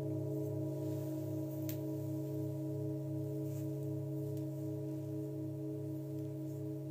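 Several singing bowls ringing together in steady, overlapping tones, the lowest tone wavering slowly and regularly as its sound beats. A few faint high ticks sound over the ringing.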